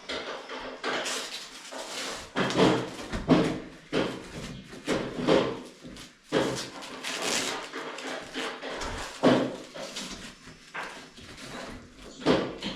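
Irregular knocks, clatters and scrapes, about a dozen over the span, of parts and tools being handled during shower and bathroom fitting work.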